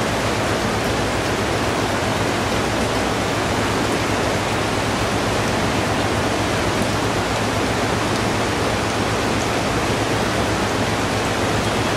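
Swollen hill river in flood, a loud steady rush of fast churning floodwater.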